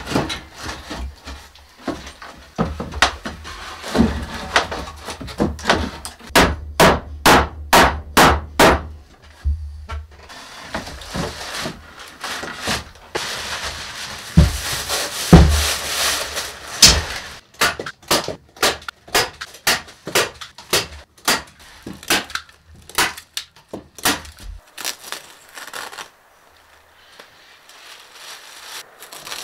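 Hammer driving nails into wooden wall boards: runs of quick sharp blows, a few a second, with pauses between the runs.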